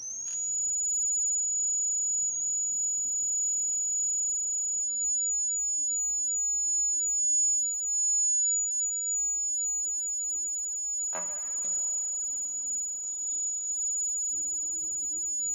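Buzzer of a homemade breadboard fire alarm circuit going off: one steady, high-pitched tone that slides up briefly as it starts, with a single knock about eleven seconds in.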